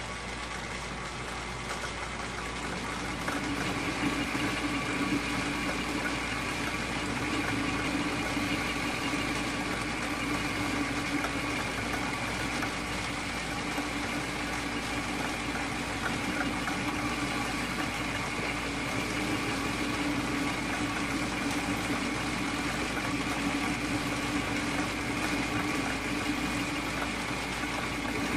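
Atlas metal lathe running with its four-jaw chuck spinning while a boring bar takes a 20-thousandths cut inside a metal block, opening the bore. A steady machine hum with a higher ringing tone, both growing a little louder about three seconds in.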